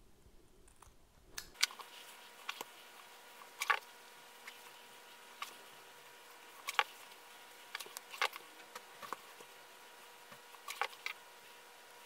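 Scattered light clicks and taps, irregular and about a dozen in all, from hands working folded fabric quilt binding with scissors and a household iron on a pressing board. A faint steady hum runs underneath.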